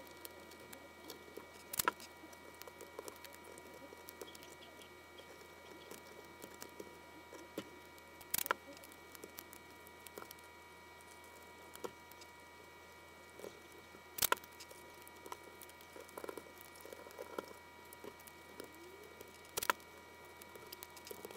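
Strips of masking tape being torn off and pressed down by hand, with four short rips spaced about six seconds apart and light rustling and tapping of fingers and thin wire between them.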